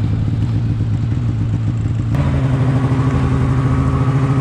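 Snowmobile engine running steadily, its pitch stepping up abruptly about two seconds in.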